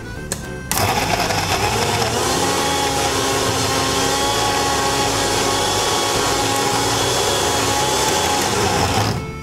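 Electric mixer grinder running with a steady whine, grinding dates and honey into a soft paste. It switches on just under a second in and cuts off shortly before the end.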